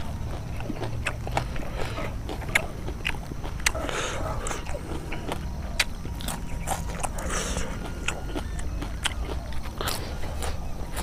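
A person biting and chewing raw leafy vegetables and stems, with irregular short crisp crunches several times a second, over a low steady rumble.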